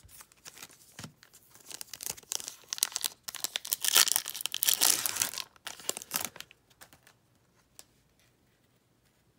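Foil Yu-Gi-Oh! Speed Duel booster pack wrapper crinkling and being torn open, loudest about four to five seconds in, then a few soft rustles of the cards being slid out.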